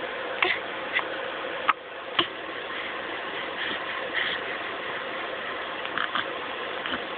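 A baby hiccupping: short, sudden little sounds, several in the few seconds, over a steady background hum.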